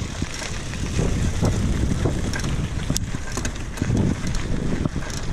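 A mountain bike rolling along a dirt trail: wind buffets the microphone over a steady low rumble from the tyres, with scattered clicks and rattles from the bike.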